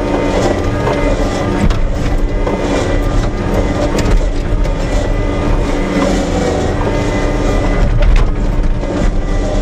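Tractor engine running steadily while the tractor drives across a bumpy field with its front-loader bucket lowered, with occasional knocks and rattles as the machine jolts over the rough ground.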